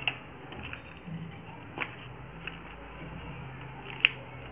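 A few light clicks and taps of plastic toys being handled and set down, over a faint steady low hum.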